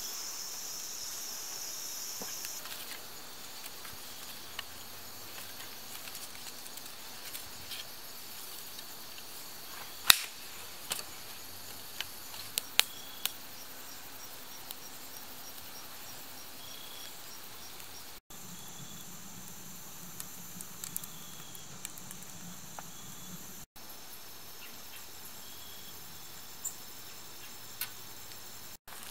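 Insects chirping steadily in a high, evenly repeating pattern. A handful of sharp cracks and pops come in the middle, from a small stick campfire crackling as it catches.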